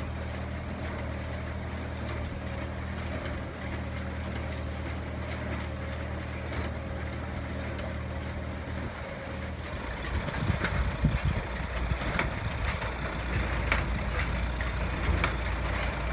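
Tractor engine driving a John Deere 24T square baler, running with a steady hum. About nine seconds in the sound turns rougher and louder, with a series of sharp mechanical clacks from the working baler.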